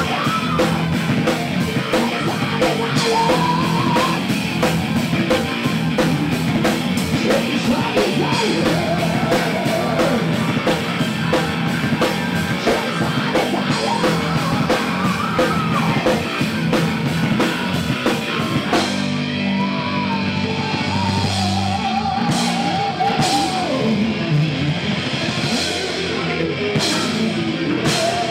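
Heavy metal band playing live: distorted electric guitars and bass over a drum kit pounding fast with constant cymbals. About two-thirds of the way through, the steady cymbal wash stops and a guitar line carries on, marked by a few separate cymbal crashes.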